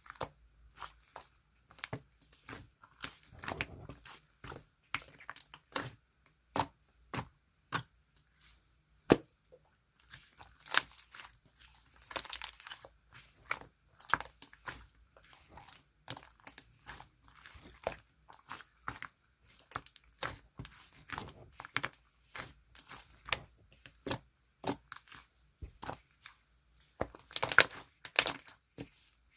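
Clear blue slime being handled by hand, making irregular sharp clicks and crackles as it is pressed, stretched and folded, with a louder run of clicks near the end.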